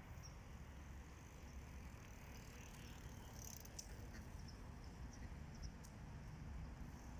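Faint outdoor ambience: a low rumble of wind on the microphone, with a few faint, short, high chirps.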